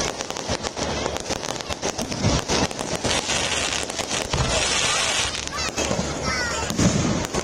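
Fireworks display: a rapid run of crackling pops and bangs from bursting aerial shells, with a hissing stretch about five seconds in.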